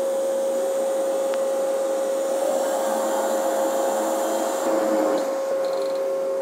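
Diesel engines of a river towboat pushing a barge, a steady drone with a constant high hum, swelling briefly about four to five seconds in.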